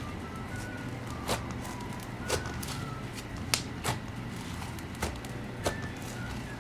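Icy slime being squished and poked, giving short, sharp crackling pops about once a second.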